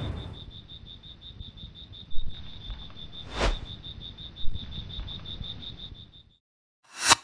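Jungle-ambience sound effect of a cricket-like insect trilling in fast, even pulses, over the fading tail of a boom. A short whoosh sweeps through about halfway. The trill stops about six seconds in, and a single sharp crack follows near the end.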